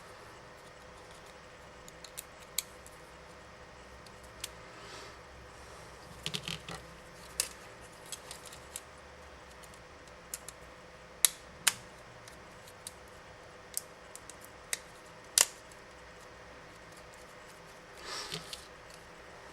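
Scattered sharp clicks and taps of small plastic and metal parts and tools being handled while a Sony Ericsson K550i phone is taken apart, with a few short scraping rustles. The loudest clicks come a little past the middle.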